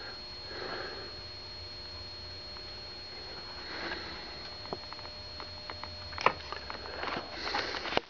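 Soft breaths or sniffs close to the microphone, about a second in and again near four seconds, then a few sharp clicks of handling noise that gather near the end. A faint steady high-pitched whine runs underneath.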